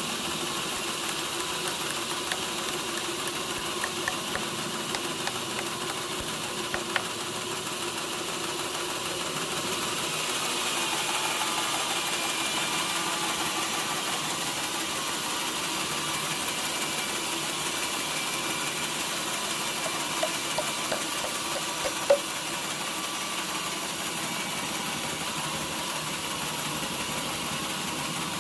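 Sawmill machinery running steadily, its engine humming, growing slightly louder for a few seconds about a third of the way in. A few sharp knocks come over it, the loudest near the end.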